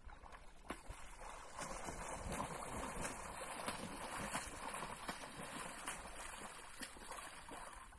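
A swimmer splashing through lake water, a continuous run of choppy splashes from the strokes and kicks that starts about a second in and dies down near the end.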